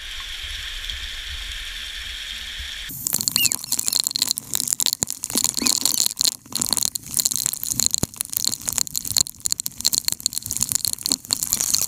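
Heavy rain falling in a steady hiss. About three seconds in it turns louder and crackly, with dense irregular patters of raindrops hitting close to the microphone.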